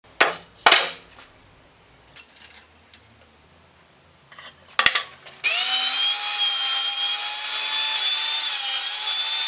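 A few sharp knocks of spruce boards being handled, then about halfway through a benchtop table saw comes in loud and steady with a whining pitch, cutting a spruce board pushed through a crosscut sled.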